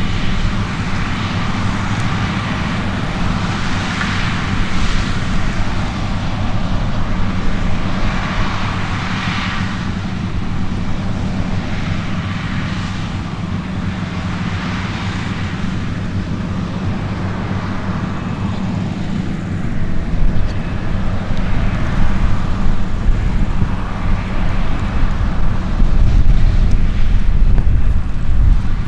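Heavy diesel farm machinery working at harvest, running with a steady engine hum and a higher rushing noise that swells and fades every few seconds. It grows louder with more low rumble over the last several seconds.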